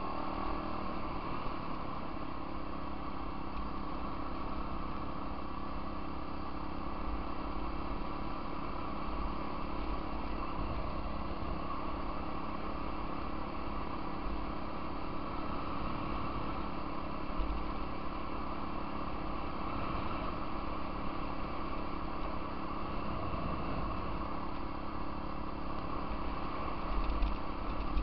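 Off-road vehicle engine running steadily at cruising speed along a gravel trail, with a gusty low rumble of wind on the microphone. A couple of brief knocks come through, one a little past halfway and one near the end.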